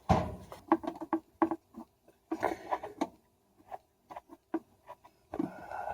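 Irregular clicks, taps and knocks from parts and tools being handled during work on a washing machine's shock absorber. A thump comes at the start and the clicks fall in clusters.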